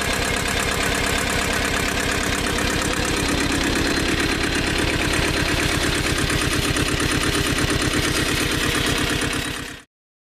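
A 1980 Ford 1200 compact tractor's diesel engine idling steadily, with an even rapid beat of firing pulses. It cuts off suddenly near the end.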